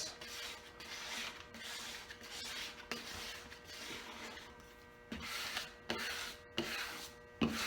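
Squeegee rubbing across paper transfer tape in a series of strokes, pressing a vinyl decal flat onto the surface.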